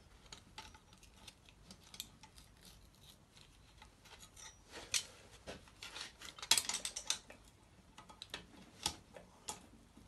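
Light metal clicks and clinks of a lever-type valve spring compressor being handled and repositioned on an engine cylinder head: scattered single taps, with a quick cluster of clinks about two-thirds through.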